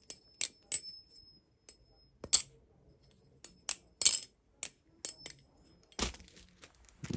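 Baliplus Orca V2 clone balisong being flipped: an irregular run of sharp metallic clicks and clacks as the handles and blade swing and hit their stops. Some clicks leave a brief high metallic ring, and the loudest clack comes about six seconds in.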